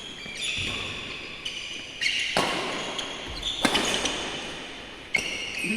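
Badminton play on an indoor court: sharp racket strikes on a feather shuttlecock, four of them a second or more apart, with shoes squeaking on the court floor between hits.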